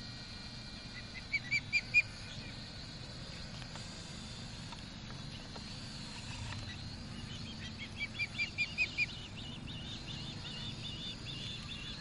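Osprey calling: four short, high whistled chirps about a second in, then a faster run of about six chirps from about eight seconds in, with softer chirps following.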